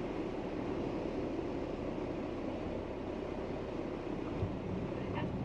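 Single-engine piston light aircraft's engine running steadily, a constant drone heard from inside the cockpit.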